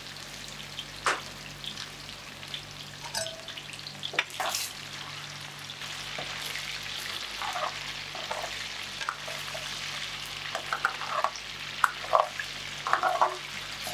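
Cornflour-coated chicken pieces sizzling steadily as they fry in oil in a steel pan. A metal spoon stirs them, clicking and clinking against the pan, more often in the second half.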